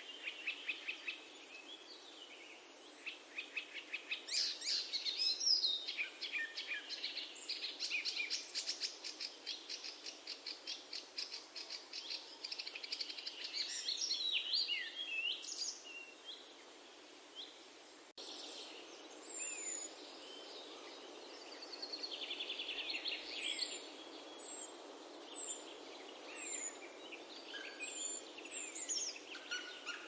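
Small songbirds singing, with rapid trills and short high chirps overlapping, over a steady outdoor background hiss. A click about two-thirds of the way through, where the background hiss changes.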